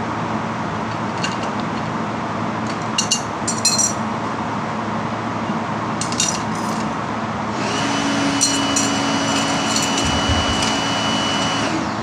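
Metal tool parts clinking and clattering a few times as they are handled. A steady high whine starts about halfway through, runs for about four seconds and cuts off, over a constant background hum.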